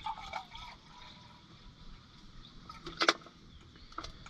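Water being poured out to measure it, with a sharp click about three seconds in.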